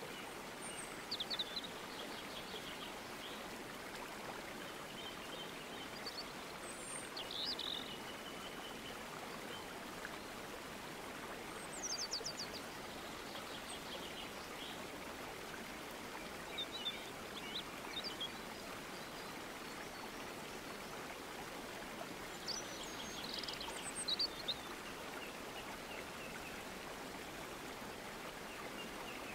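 Nature ambience recording: a steady rush of flowing stream water, with birds giving short high chirps and quick trills every few seconds.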